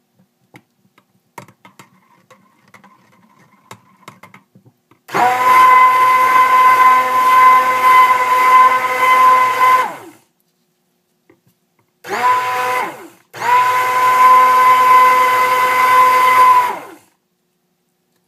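Stick blender mixing cold-process soap batter toward trace, running in three bursts: a long run about five seconds in, a brief one, then another long run. Faint clicks and knocks come before the first run.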